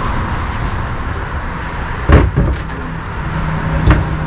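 Wooden teak table top knocking against the inside of a seat storage compartment as it is lowered in: a sharp knock about two seconds in, the loudest, and another near the end, over a steady background hum.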